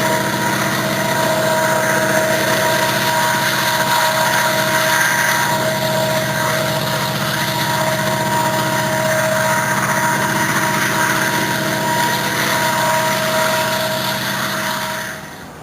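A train running past, loud and steady, with a low engine hum under two held whining tones. It cuts off suddenly near the end.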